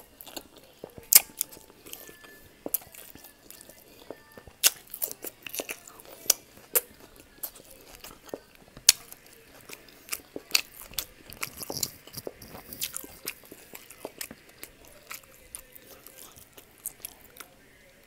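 Close-up mouth sounds of eating pork liver steak with onion rings: wet chewing and smacking, with sharp crunches at irregular intervals.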